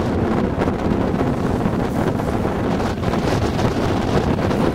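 Wind blowing across the microphone on a small open boat at sea: a steady, dense low rush.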